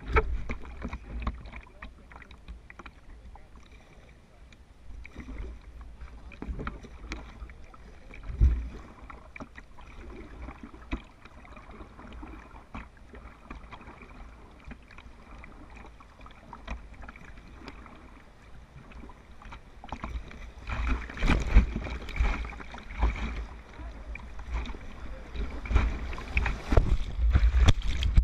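Werner paddle blades dipping and splashing beside a whitewater kayak, with water slapping the hull under a deck-mounted action camera and a steady low rumble. The splashing grows louder and more frequent about two-thirds of the way in.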